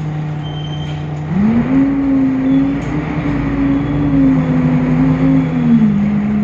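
Temsa Avenue LF city bus's DAF diesel engine, with a deeper, darker note than usual for this model. It runs steadily, then rises in pitch as the bus accelerates about a second and a half in. It holds there and drops back a little near the end.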